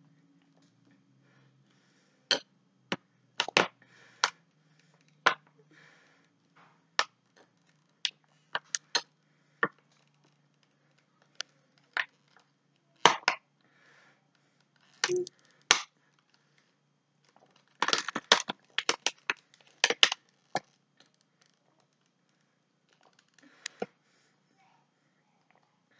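Thin plastic water bottle crackling and popping in irregular sharp clicks as it crumples in on itself while being sucked from. The clicks come in denser bunches past the middle.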